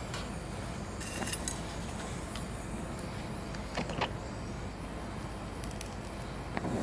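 Gas brazing torch flame hissing steadily on a metal cylinder, with a few short sharp clicks: about a second and a half in, around four seconds, and near the end.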